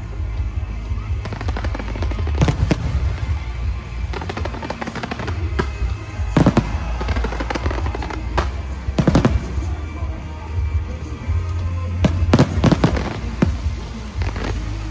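Fireworks bursting in a show, sharp bangs every few seconds, some coming in quick clusters, over music with a steady bass.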